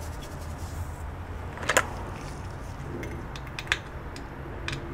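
A few sharp metallic clicks and taps as a gloved hand handles the ARRIS cable modem's circuit board with its metal shield cover and heatsink; the loudest click comes just under two seconds in.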